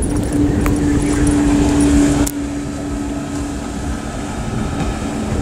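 Outboard engine of a fire-service boat running at speed, a steady drone over a low rumble of wind on the microphone. The drone drops in level a little over two seconds in.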